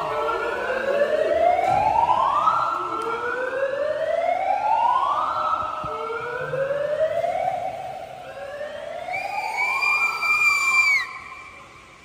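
A siren sounding in repeated rising whoops, each climbing in pitch over about two seconds, about every two and a half seconds. Near the end a steady high tone sounds for about two seconds, and everything cuts off just before the end.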